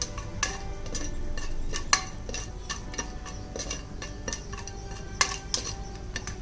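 A metal spoon clinking and knocking against a metal pressure cooker pot as it is stirred. The clinks come at irregular times, each with a short metallic ring, and the two sharpest strikes come about 2 seconds in and about 5 seconds in.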